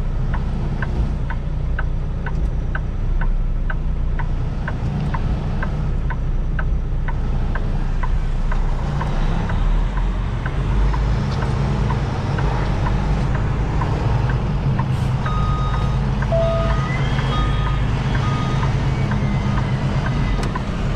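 Diesel engine of a Kenworth T680 truck running steadily, heard from inside the cab. Over it comes a light ticking, about two to three ticks a second, that fades out about halfway through. From about three-quarters of the way in, a reversing beeper sounds in evenly spaced beeps.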